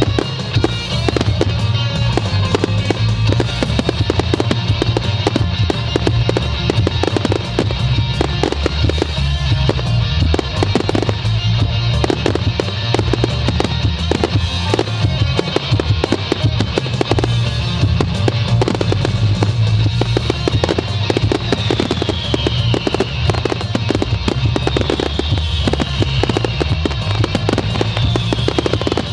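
Fireworks finale: a dense, continuous barrage of rapid bangs and crackles over a low rumble, with music playing alongside.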